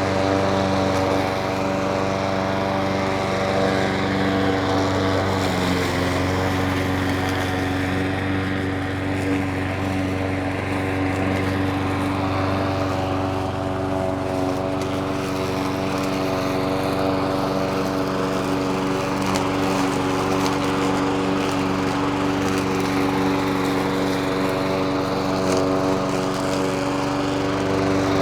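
Petrol lawn mower engine running steadily at an even speed.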